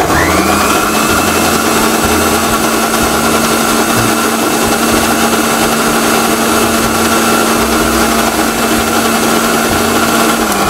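Electric mixer-grinder motor running steadily, grinding a wet dosa batter of soaked foxtail millet and moong dal. The whine rises as the motor spins up at the start and falls away as it winds down near the end.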